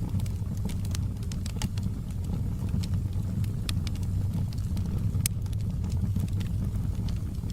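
Wood fire crackling in a fireplace: irregular sharp snaps and pops over a steady low rumble of the burning fire, with one louder pop a little past the middle.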